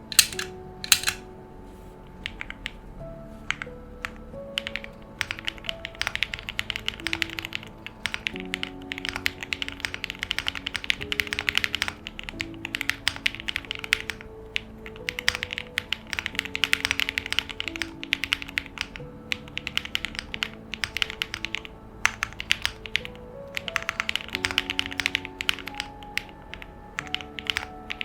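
Fast typing on a Class65 custom mechanical keyboard with lubed Alfilon Blue Sky linear switches and double-shot PBT keycaps: rapid key strokes come in bursts with short lulls. Background music plays under the typing.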